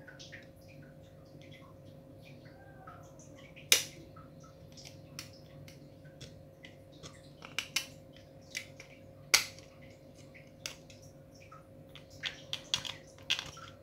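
Utility knife blade scraping and clicking against the plastic slide of a spring airsoft pistol, shaving off the melted-plastic burrs left by a heated cutter. Scattered sharp clicks and scrapes, the loudest about 4 and 9 seconds in, with a quick run of clicks near the end, over a faint steady hum.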